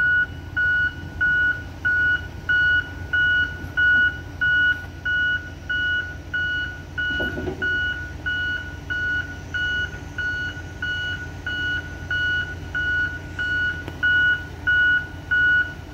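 Backup alarm on a reversing skidder, beeping steadily at about one and a half beeps a second over the low rumble of its diesel engine.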